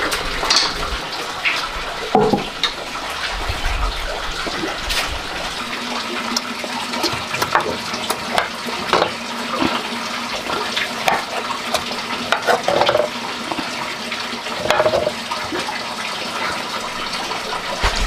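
Steady rush of running water, with scattered clinks and knocks of porcelain bowls, chopsticks and a ladle as food is dished up.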